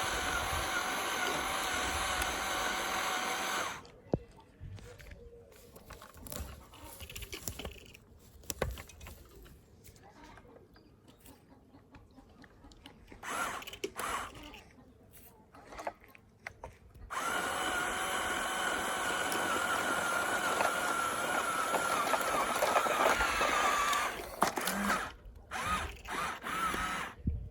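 A small motor whirring steadily for a few seconds, then stopping; a stretch of scattered clicks and knocks follows, and then the motor runs again for about seven seconds, its pitch sinking slightly near the end.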